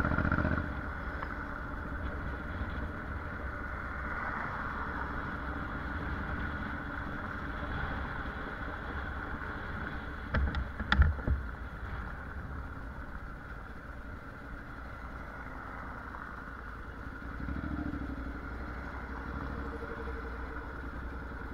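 On-board sound of a Honda NC750X's parallel-twin engine running steadily at low speed, with road and wind noise. About ten and a half seconds in, a brief cluster of sharp knocks is the loudest sound.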